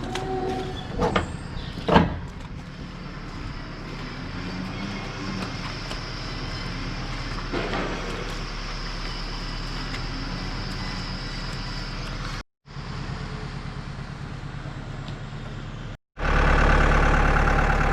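Farm vehicle engine running steadily, with a couple of sharp knocks about two seconds in. The sound drops out briefly twice, and the engine is louder near the end.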